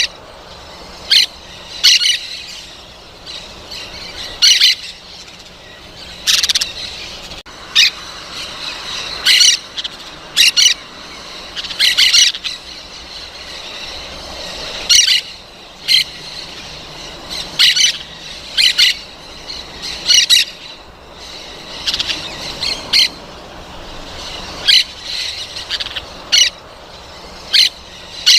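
Parrots squawking: short, harsh calls repeated irregularly, about one every second or two.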